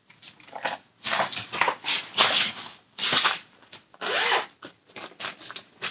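Rustling, rubbing handling noise as a cross-stitch project and its things are got ready: a run of scratchy strokes, about one or two a second, busiest in the middle.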